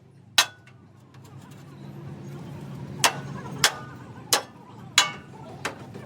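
Hammer blows on metal: one strike, then after a pause a run of five regular blows about two-thirds of a second apart, over a low steady hum.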